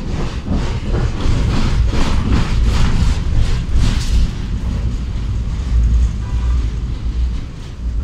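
Bucur V2A-T tram running, heard from inside the passenger cabin: a steady low rumble from the running gear, with a rapid clatter of about three knocks a second over the first half that gives way to a smoother rumble.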